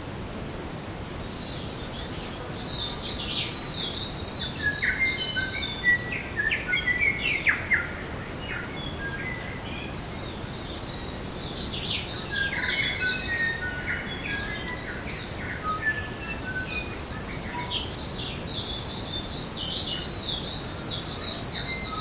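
Songbirds singing in native bush: fast, varied phrases of chirps, trills and short whistled notes in two bouts, the second beginning about eleven seconds in. Under the birds there is a steady background hiss.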